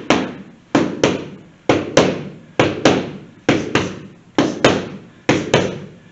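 Boxing gloves smacking into hand-held punch mitts in a steady run of quick pairs, a left hook then a right hook. There are about seven pairs, one roughly every second, and each smack has a short echo.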